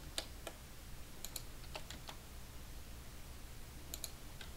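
Computer keyboard and mouse clicks: about eight sharp taps scattered through, several in quick pairs, over a faint steady low hum.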